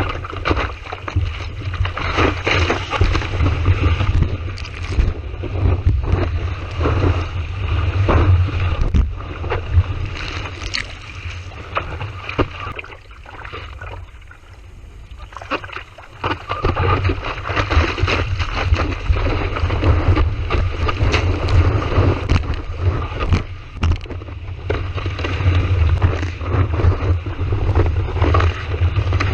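Strong wind buffeting the microphone with a heavy low rumble and crackling gusts, over the hiss of ocean surf breaking; the noise eases for a few seconds in the middle before building again.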